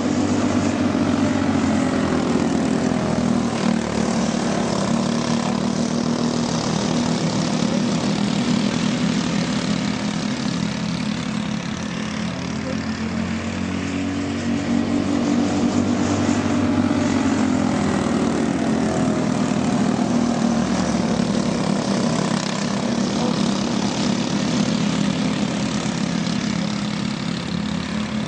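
Several racing karts' small engines running at race speed, their overlapping high buzzing notes swelling and fading every few seconds as the karts come around and pass.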